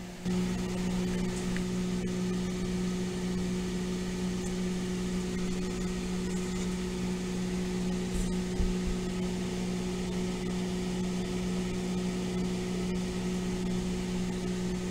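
Microwave oven running: a steady electrical hum that steps up in level just after the start and then holds even.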